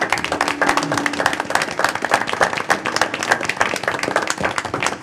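Group of people applauding: many hands clapping in a dense, steady patter.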